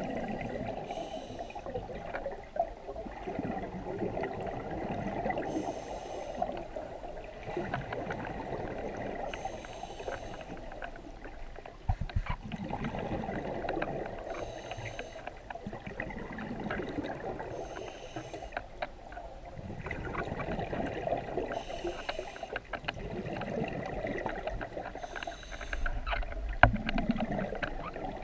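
Scuba diver breathing through a regulator, heard underwater: a short hissing burst about every four seconds with a steady bubbling rush between, and a few sharp knocks, the loudest near the end.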